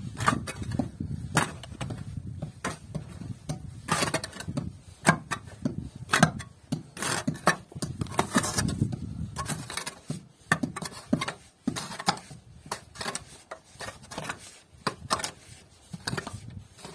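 Short-handled mattock chopping into dry, stony earth, about one strike a second with the scrape and trickle of loosened soil between strokes.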